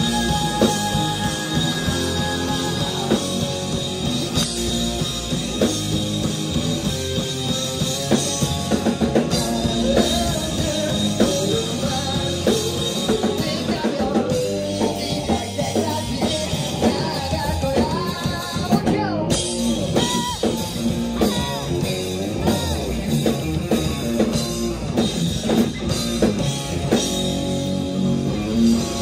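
Live rock band playing: electric guitars and a drum kit, with a vocalist singing into a handheld microphone.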